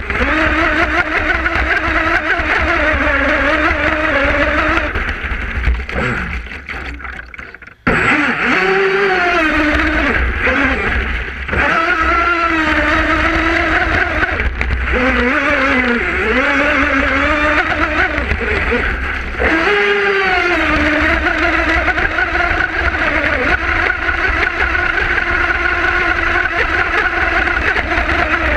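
Brushless electric motor of an RC twin-hull speedboat running with a high whine that rises and falls in pitch with the throttle. It fades almost to nothing about a quarter of the way in, then comes back abruptly at full power.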